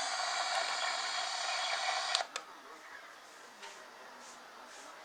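Weather radio receiver putting out loud static hiss with steady interference tones, which cuts off abruptly with a couple of sharp clicks about two seconds in, leaving faint hiss.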